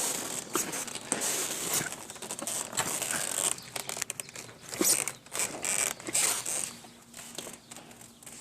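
Loose sediment inside a tank water heater, irregular gritty crackling and rattling. The heater is so full of sediment that it drains very slowly.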